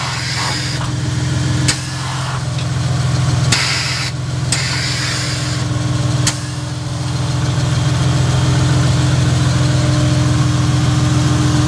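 Car engine idling steadily while the front air-suspension bags are worked: sharp valve clicks at intervals and short bursts of air hiss during the first six seconds or so, then the engine alone.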